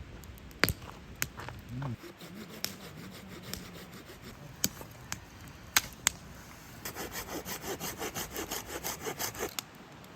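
Wood being sawn by hand: a quick run of even back-and-forth saw strokes, about four or five a second, starting about seven seconds in, after a few scattered sharp knocks and clicks of wood being handled.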